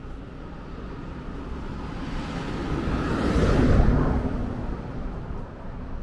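A van drives past on the road alongside. Its engine and tyre noise swells to a peak about three and a half seconds in, then fades away.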